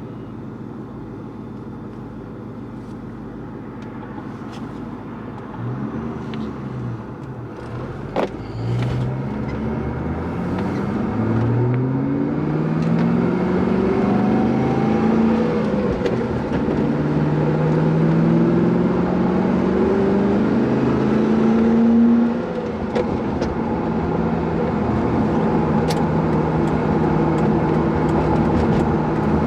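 Ford Mustang Cobra's V8 pulling away and accelerating through several gears, the engine note rising and falling back with each shift, then settling into a steady cruise about three-quarters of the way through. A single sharp click sounds about eight seconds in.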